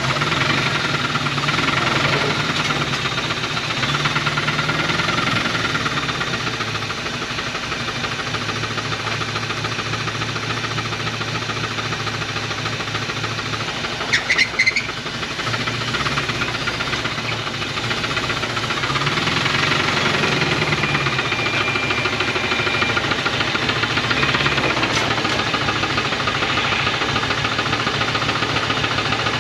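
A 1980 Dodge truck's 360 V8 running with a rapid rod knock, its speed rising and falling a little. A brief high-pitched sound cuts in about halfway through.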